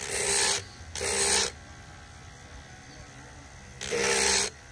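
Carbide burr in a cordless rotary tool grinding the cast-aluminium port of a Predator 212 cylinder head in sweeping porting strokes. Three rasping passes of about half a second each come at the start, about a second in and near the end, with a quieter steady hum between them.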